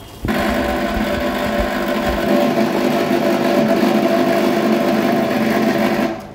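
Tobacco pouch packing machine running: a loud, steady mechanical hum with a whirr from its motor and rotating cup-filler mechanism. It starts suddenly about a quarter second in and cuts off suddenly near the end.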